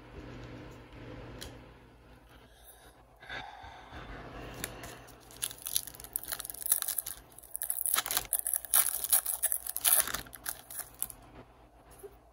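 Plastic wrapper of a pack of trading cards being torn open and crinkled, with irregular crackling, loudest in the second half.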